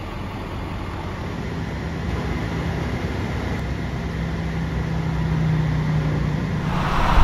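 A motor vehicle running: a steady low engine hum and rumble that grows gradually louder.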